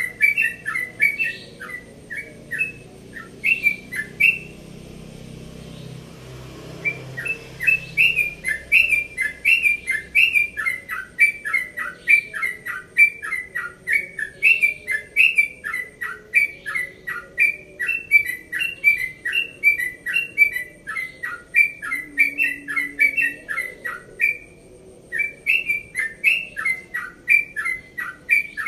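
Caged yellow-vented bulbul (trucukan) singing its long, rapid 'ropel' song: a continuous run of short chirping notes at about three a second. It pauses for a few seconds soon after the start and briefly again near the end.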